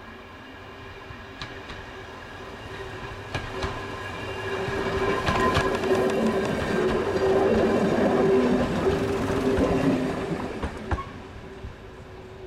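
Class 108 diesel multiple unit running past close by: the drone of its diesel engines grows louder, peaks as it passes about six seconds in, and fades after about ten seconds. A steady engine tone runs throughout, with sharp wheel clicks on the rails.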